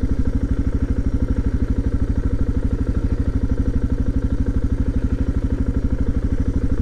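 Suzuki DR650's single-cylinder four-stroke engine running steadily under way, a fast, even beat of firing pulses that holds the same pace throughout.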